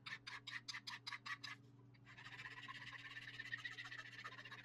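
Wood lathe motor humming steadily while something rasps against the Spanish cedar handle, first in even strokes about five a second, then as a continuous fine scraping from about two seconds in.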